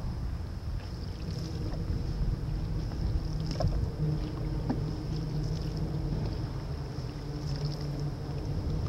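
Canoe paddling on calm water: paddle strokes with a few light knocks and drips, over a low rumble of wind on the microphone.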